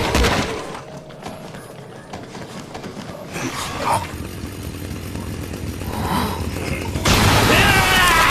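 Chainsaw transformation sound effects: a heavy thud, then rapid mechanical clicking and rattling that builds, and about seven seconds in a chainsaw engine kicks in and revs loudly with a wavering pitch.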